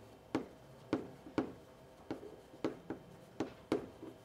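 Chalk tapping on a blackboard as characters are written stroke by stroke: a run of sharp, irregular taps, about two a second.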